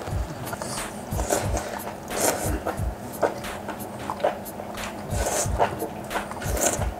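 Close-miked slurping and chewing of rice noodles: a string of short wet slurps and chewing sounds, uneven in rhythm.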